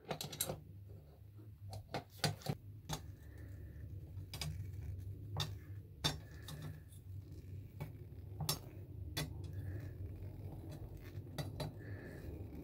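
Steel tools clinking on steel: a T-handle socket wrench turning the pivot nut of large scissors while pliers hold the screw from below, giving irregular sharp metallic clicks and taps.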